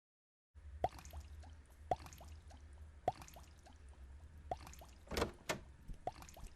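Water dripping from an open tap, single drops plinking irregularly about once a second, each a short falling blip, beginning about half a second in. Two louder clicks come close together about five seconds in.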